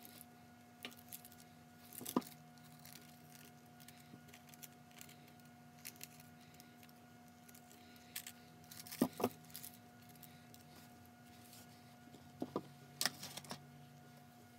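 Faint, sparse paper-handling sounds: a glassine sheet crinkling as it is folded and pressed over a small card, with two sharp scissor snips a little past the middle and a few light taps and rustles. A faint steady hum runs underneath.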